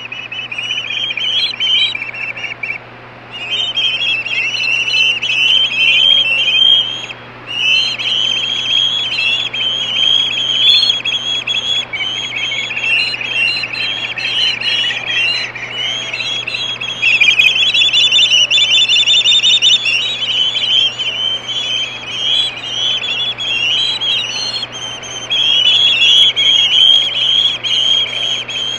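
Young ospreys screaming on the nest: rapid, near-continuous high-pitched calls, pausing briefly about three and seven seconds in.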